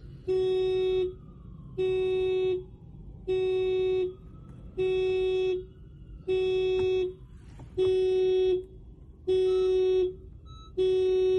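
2016 Honda Civic's horn sounding in its anti-theft alarm pattern: eight steady honks, each under a second long and about a second and a half apart. The alarm is set off by unlocking the car without a registered key.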